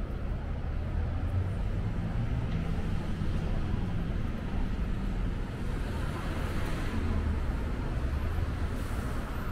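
City street traffic: a steady low rumble of cars and engines going by on the avenue, swelling about six seconds in as a vehicle passes.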